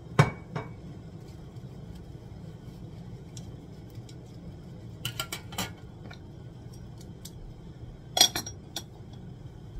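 Metal clinks and taps of a stainless steel nokedli (spaetzle) maker being handled: one sharp clink just after the start, a few light taps around the middle, and a short clatter near the end as it is set across the rim of the pot. Under them runs the steady low rumble of a pot of water at a rolling boil.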